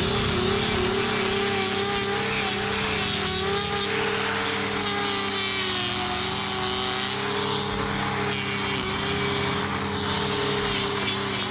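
Angle grinder running continuously as it trims a cow's hoof, its motor whine wavering up and down in pitch as the disc is loaded and eased off the horn, over a steady lower hum.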